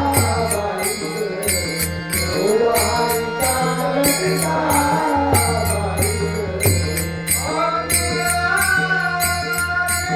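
Devotional Varkari bhajan singing: a solo voice holds long, gliding melodic lines over a steady drone, with small hand cymbals struck in an even rhythm.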